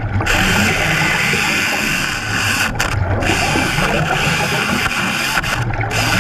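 Hydraulic chainsaw running underwater, its chain cutting through a submerged wooden post. A steady mechanical noise with a dense hiss that dips briefly a few times.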